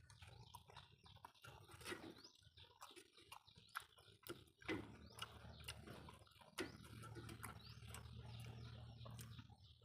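Faint chewing and mouth smacks of someone eating noodle soup: scattered short clicks and smacks, with a low steady hum in the last few seconds.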